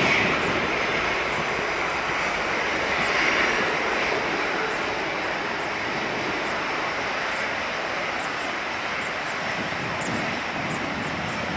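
Boeing C-40C (737-700) jet's CFM56-7 turbofans running at taxi power while the aircraft taxis close by: a steady whine and rush.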